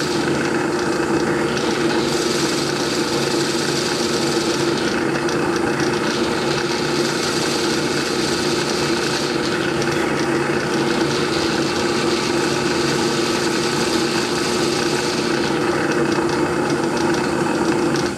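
Drill press motor running steadily while a high-speed steel twist bit bores a centre hole in a turned softwood handle. The cutting noise rises and falls every few seconds as the bit is fed in and backed out to clear the shavings.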